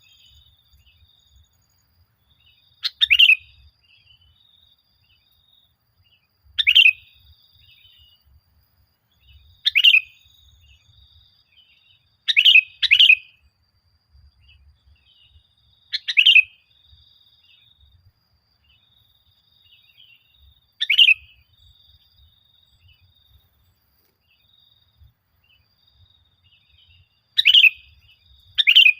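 Sooty-headed bulbul (kutilang) calling: short, loud, falling chirpy phrases every three to five seconds, two of them doubled, with a faint high chirring between the calls.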